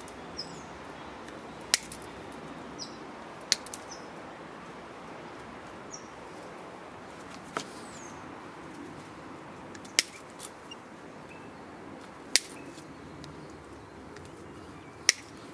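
Strands of galvanised chicken wire snapping one at a time as they are cut with a wooden-handled cutter blade: about six sharp clicks, a couple of seconds apart.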